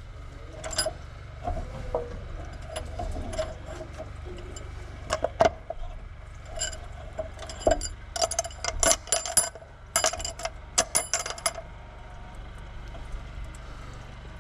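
Small metal parts and hand tools clinking and tapping against each other and the engine, a string of sharp ringing clicks that comes thickest in a flurry about two-thirds of the way through.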